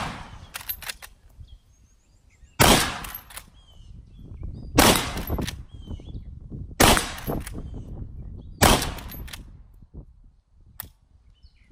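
Henry side-gate lever-action .30-30 rifle firing four shots about two seconds apart. Each shot is followed by a few quick metallic clicks as the lever is worked.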